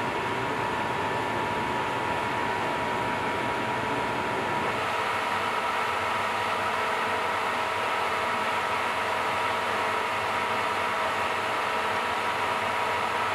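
Steady machine hum and hiss with faint high whining tones, like a running fan. About five seconds in the low rumble drops away, leaving the hiss and a thin whine.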